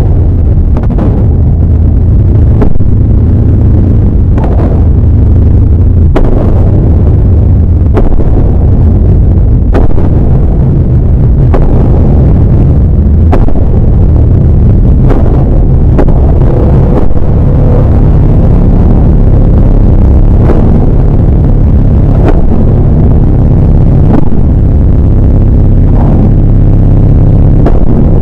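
A constant, very loud, distorted low rumble with sharp clicks every second or two.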